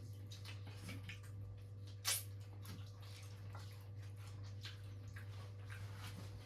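Eating sounds: faint wet chewing and small mouth clicks of a person eating fried fish, with one sharper click about two seconds in. A steady low hum runs underneath.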